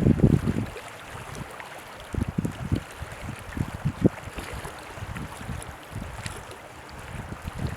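Wind buffeting the microphone in uneven low gusts, strongest at the start, easing after about a second, then picking up in short puffs.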